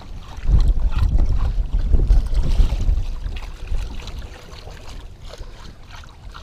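Wind rumbling on the microphone in uneven gusts, heaviest in the first three seconds and easing after that.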